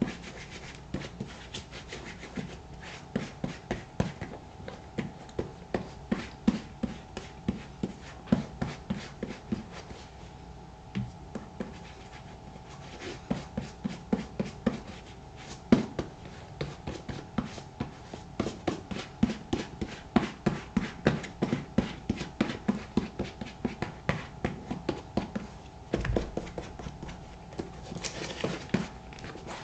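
Quick repeated rubbing strokes on black boot leather as shoe cream is worked in, about two to three strokes a second with a couple of brief pauses.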